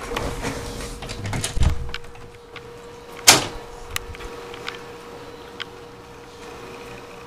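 A door being opened and walked through, with handling rumble and clicks on the camera's microphone and one sharp knock about three seconds in. A faint steady hum runs underneath.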